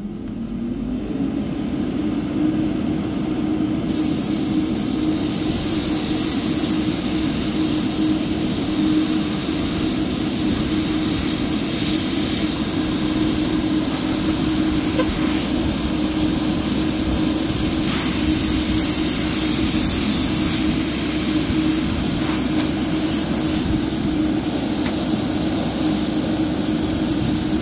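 Airbrush compressor motor starting up, its hum rising in pitch for about a second, then running at a steady pitch. From about four seconds in, the hiss of air and paint spraying from the airbrush runs alongside it.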